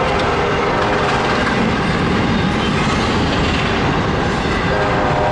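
Double-stack intermodal freight train's cars rolling across a steel girder bridge: a steady loud rumble and clatter of wheels on rail, with faint steady metallic tones over it.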